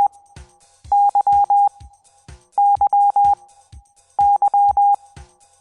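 Morse code for the letter Y (dah-dit-dah-dah), sent as a steady mid-pitched beep. The group of long and short beeps repeats three times, about every second and a half, after the tail of a first group.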